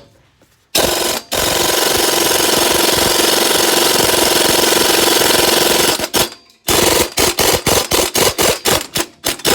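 Impact wrench hammering on a fastener to take it off: a short burst, then about four and a half seconds of continuous hammering, then a rapid string of about a dozen short trigger bursts.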